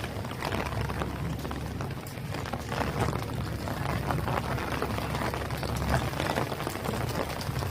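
Heavy rain falling, a steady wash of many close, fast drop impacts over a low rumble.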